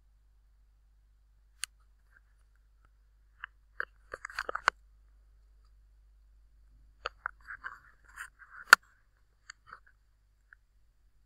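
Scattered clicks and two short flurries of crisp tapping from computer mouse and keyboard handling. The sharpest single click comes near the end.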